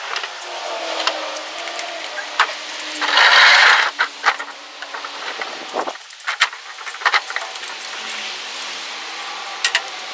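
Clicks and knocks of a folding ping pong table's light metal frame and tabletop panels being handled and set up, with a louder noisy rush of about a second roughly three seconds in.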